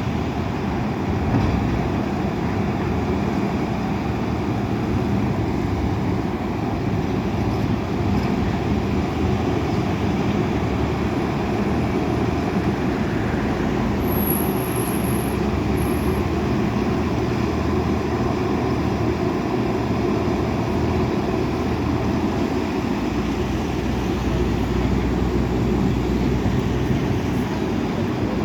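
Diesel engines of heavy earthmoving machines (a bulldozer and backhoe loaders) running steadily, with a deep engine hum that grows stronger near the end.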